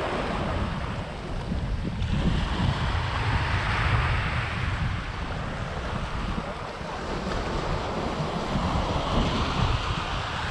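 Small waves washing up onto a sandy beach, the surf swelling twice, about two seconds in and again near the end, with wind rumbling on the microphone.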